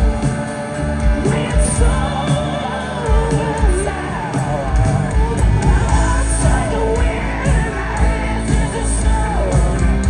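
Live blues-rock band playing loud: drums, bass and electric guitar with a bending, wavering lead line on top.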